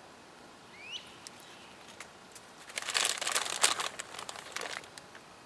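Dry corn leaves and husks rustling and crinkling in a dense patch about halfway through, with a short rising chirp about a second in.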